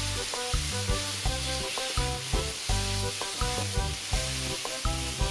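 Tofu and glass noodles sizzling as they are stir-fried in an oiled non-stick wok with a wooden spatula, over background music with a steady beat.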